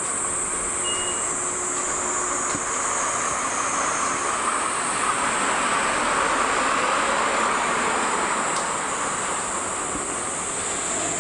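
Cicadas calling, a steady high continuous buzz, with a broad rushing noise underneath that swells through the middle and eases off again.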